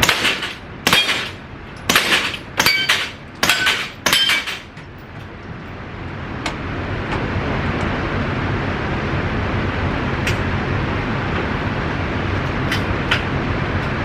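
A quick string of about six sharp cracks, each with a short metallic ring, roughly a second apart: gunfire at a shooting range. After that, a steady low outdoor rumble with a few faint distant pops.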